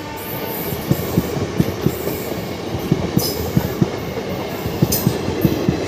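Passenger train coaches rolling past as the train picks up speed after departure: wheels clacking over rail joints in an uneven run of knocks, several a second, over a steady rumble. Two brief high wheel squeals come about three and five seconds in.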